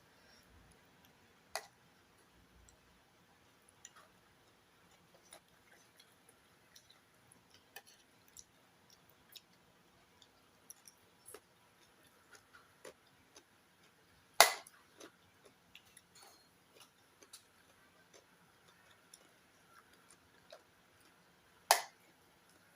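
Quiet eating sounds: scattered small clicks and taps, with three sharp clicks, the loudest about fourteen seconds in.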